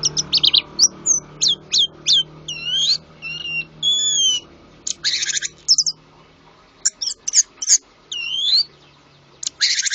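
A songbird sings a varied song of short whistled notes, rising and falling glides and quick rattling trills, broken by short pauses. It is a master-song recording of the kind played to teach orange-headed thrushes new phrases.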